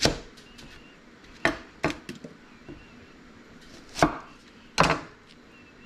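Kitchen knife cutting shallots on a cutting board: five sharp, unevenly spaced knocks of the blade striking the board.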